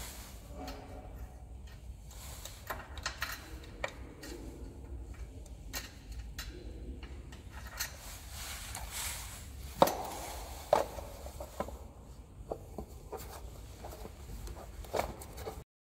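Light metallic clicks and taps from a wheel being fitted onto a high-pressure cleaner's axle and a locking pin pushed through the axle end, with two sharper clicks about ten and eleven seconds in, over a steady low hum.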